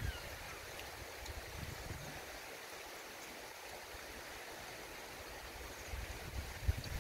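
Steady outdoor background hiss, with a few faint ticks over it.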